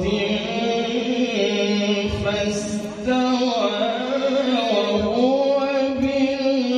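A man's solo voice reciting the Qur'an in melodic tilawah style into a microphone, drawing out long ornamented notes whose pitch winds up and down, with a brief pause about three seconds in.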